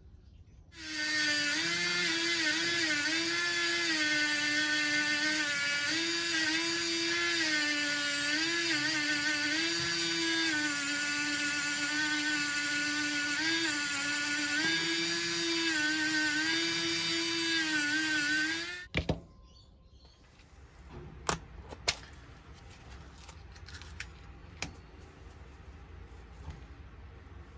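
A small high-speed electric power tool, such as a drill or rotary tool, runs for about eighteen seconds and then cuts off suddenly. Its pitch sags and recovers again and again as it is pressed into the work. After it stops, a few sharp clicks and light handling knocks follow.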